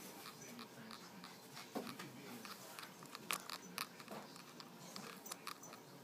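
Faint scuffling of a Presa Canario puppy moving about and nosing at things, with scattered small clicks and knocks.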